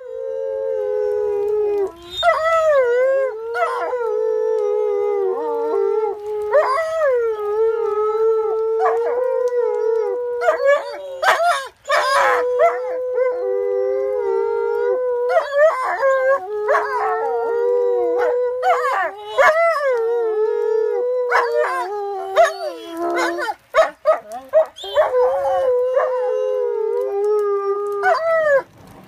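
Two wolf-like dogs howling together in long, overlapping howls held at slightly different pitches, each howl sliding in and out at its start and end. Short yips break in around the middle and again near the end.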